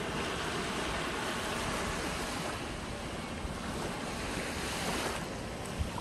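Small waves washing up and lapping on a sandy beach, a steady wash of surf, with wind buffeting the phone's microphone and a few low thumps near the end.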